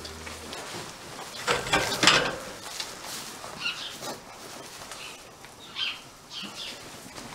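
Rustling and handling noise in straw, loudest about one and a half to two seconds in, followed by several short, high chirps scattered through the rest.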